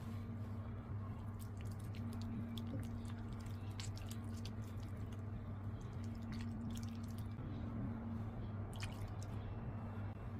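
Wet, sticky bread dough being mixed in a bowl, giving a run of small squishing, sticky clicks over a steady low hum.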